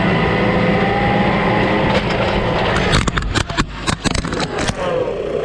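A vehicle's engine running loud and close to the microphone. From about three seconds in come a string of sharp knocks and crunches as the vehicle rolls over the GoPro camera.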